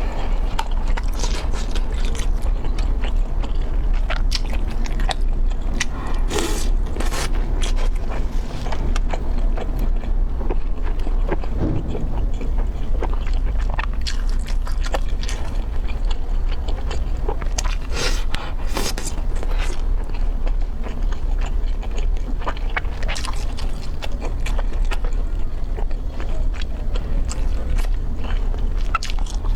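A person biting and chewing food close to the microphone: irregular crisp crunches and mouth clicks, over a steady low hum.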